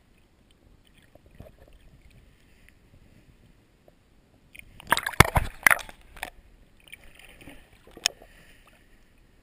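Water sloshing and muffled knocks heard through an underwater camera, with a burst of sharp knocks and splashing about five seconds in and one more sharp knock about eight seconds in.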